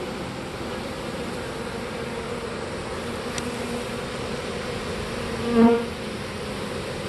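Honey bee swarm buzzing steadily. Late on, one bee passes close by and its buzz is briefly louder.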